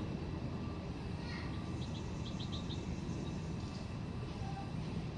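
Cooper's hawk calling a short run of about five quick, clipped notes about two seconds in, over a steady low background rumble.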